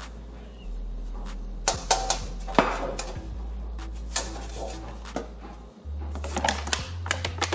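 Background music with a low bass line, over sharp clicks and taps from a thin metal tray being picked up, tilted and set down, in a cluster about two seconds in and again near the end.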